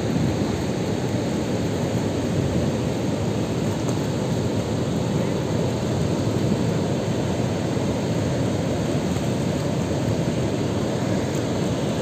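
Water pouring in a wide curtain over a masonry dam weir and churning in the river below: a steady, deep rush of falling water.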